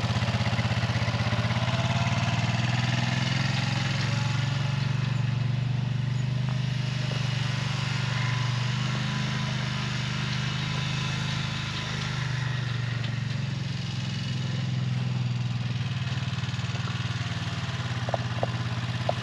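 Vehicle engine running steadily at an even speed.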